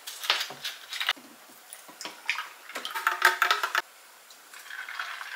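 Milk poured from a plastic bottle over ice cubes into tall glasses, with several short clinks of ice against glass.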